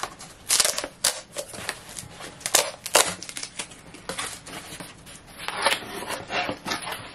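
Cardboard book mailer being torn open by hand: a run of irregular short rips and crackles of stiff card and paper.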